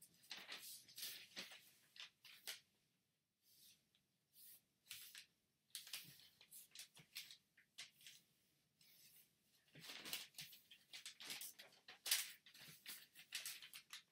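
A large sheet of origami paper rustling and crinkling as it is handled, folded and creased by hand, in irregular bursts with short pauses between them.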